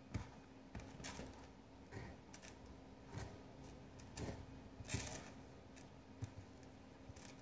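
Knife cutting vegetables on a plate: irregular taps and light scrapes of the blade against the plate, roughly one a second, the loudest about five seconds in. A faint steady hum runs underneath.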